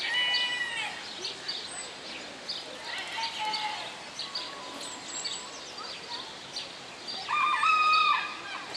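Small birds chirping throughout, with two louder held calls: a short one at the start and a longer, louder one about seven seconds in.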